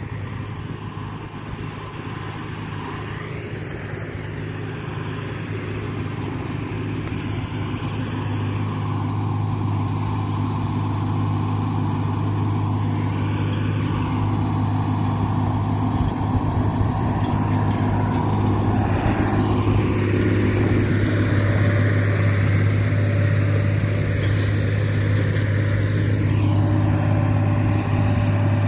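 Diesel engine of a harvest machine, a combine harvester or a baling tractor, running steadily at working speed under load, growing gradually louder as it comes closer.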